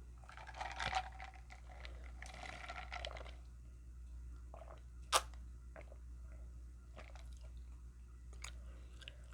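A person chewing food close to the microphone, busiest in the first three seconds, then scattered smacks and small clicks, with one sharp click about five seconds in.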